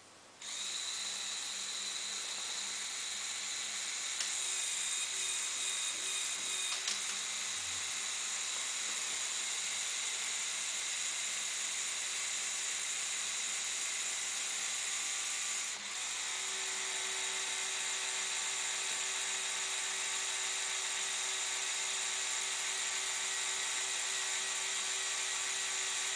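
Lego Technic 8258 crane truck's small electric motor and gear train whirring steadily as it drives the crane boom up and then back down. There is a brief break and a change of tone about 16 seconds in, where the motion turns around.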